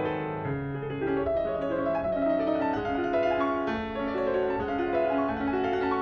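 Solo piano music: single notes and chords following one another, with lower notes held beneath.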